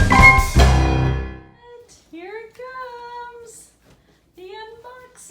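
Upbeat intro music with a drum beat ends about a second and a half in. After it, a child's voice sings drawn-out, sliding sing-song notes in two phrases.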